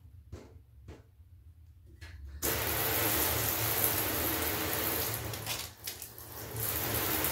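A few faint handling clicks, then about two seconds in the water is turned on and a handheld shower head sprays steadily into the bath, with a brief dip in the spray near the end.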